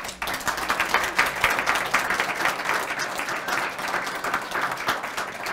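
Audience applauding: many hands clapping at once, starting suddenly and holding steady.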